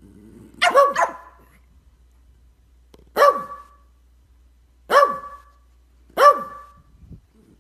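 Pug barking: five short barks, two in quick succession about a second in, then three more a second or two apart.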